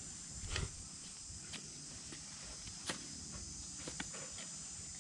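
A steady high-pitched insect chorus, with a few scattered soft knocks and thuds. The loudest knock comes about half a second in.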